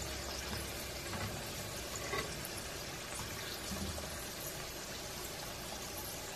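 Pumpkin wedges deep-frying in hot oil: a steady sizzle with a few small crackles.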